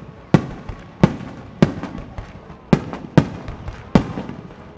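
Aerial firework shells bursting in an irregular barrage, about seven sharp bangs a half-second to a second apart, each trailing off in an echo.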